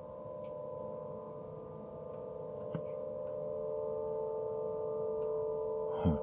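Steady droning chord of several held tones from the sky, slowly getting louder: the unexplained 'sky trumpets' sound, which seems to come from everywhere at once and which the listener rules out as a train. A brief low, falling sound comes just before the end.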